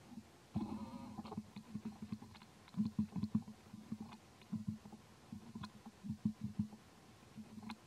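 Macaque giving soft, low grunts in short clusters of rapid pulses, with a few faint clicks between them.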